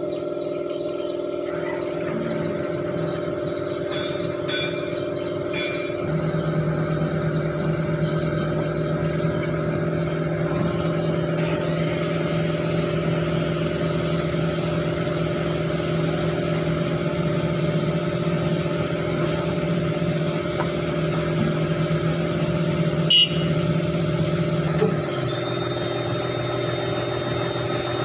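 Hitachi Zaxis 210-5G excavator's diesel engine running steadily. About six seconds in, its note rises and grows louder as the hydraulics raise the boom, then eases back near the end.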